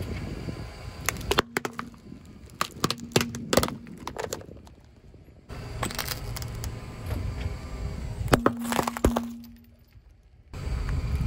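Car tyre rolling over objects and crushing them: a flexible plastic pipe cracks under the wheel, then two small amber glass spray bottles shatter. The result is a run of sharp cracks and crunches, with short quiet breaks between the two crushes.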